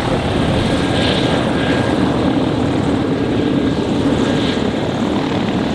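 Single turboprop engine of a Pilatus PC-12 NGX running steadily, a continuous propeller and turbine sound.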